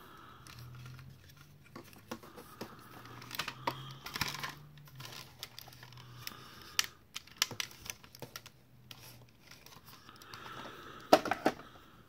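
Hands handling a plastic Spirit Halloween proton pack toy, with scattered clicks and short rustles as its switches and parts are pressed and moved, and a loud cluster of clicks about eleven seconds in. The pack makes none of its own sounds: despite fresh batteries it is not powering up.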